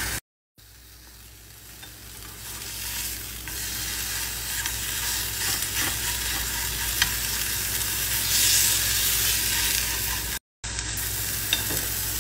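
Marinated chicken breast sizzling as it fries in a nonstick pan, the sizzle growing louder over the first few seconds and staying strong. A few light clicks of the tongs come as the breast is turned, and the sound is broken twice by brief silent gaps.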